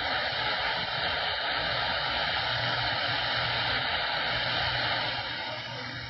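Steady hiss of static from a CB radio receiver between transmissions, with a faint low hum underneath; it drops a little near the end.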